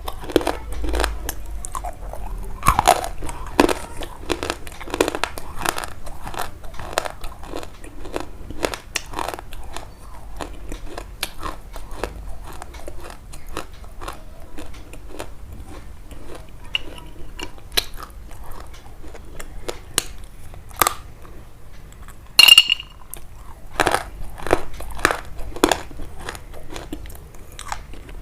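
Close-up crunching: a dense run of sharp crunches and crackles, with one louder snap about 22 seconds in.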